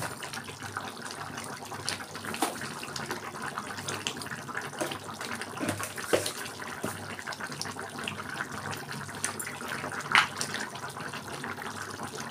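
Tomato fish curry boiling hard in a pan: a steady bubbling with many small pops, and a couple of sharper pops about six and ten seconds in.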